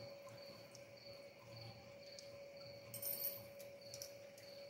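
Faint clicks and handling noise from a machined stainless steel part being worked loose from a milling vise by hand, with a short bright scrape about three seconds in, over a steady hum and a faint high tone pulsing about twice a second.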